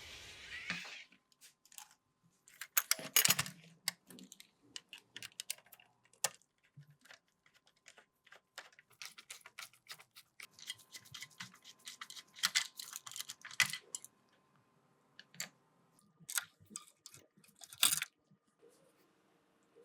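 Hand work on a small diecast model car: many irregular sharp clicks, taps and short scratchy scrapes of small metal and plastic parts and hand tools. A steady hiss stops about a second in.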